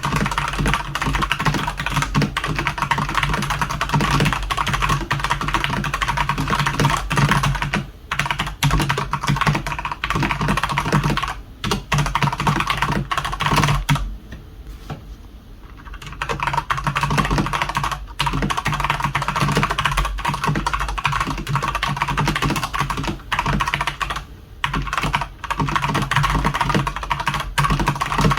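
Fast typing on a Redragon Sindri K671 mechanical keyboard with Outemu red linear switches: a dense run of key clacks, with short pauses and a lull of about two seconds near the middle.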